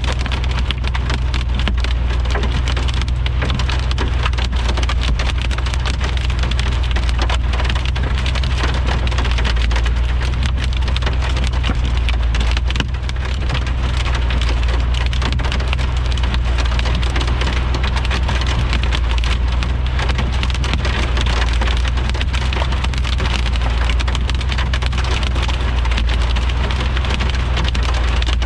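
Heavy rain pelting down as a dense, steady patter of countless drop impacts, with a steady low hum underneath.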